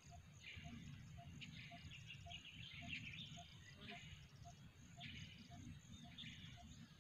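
Faint field ambience: birds chirping and insects trilling, with a soft note repeating about twice a second over a low rumble.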